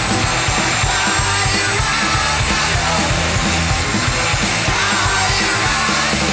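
Rock music playing with a steady beat.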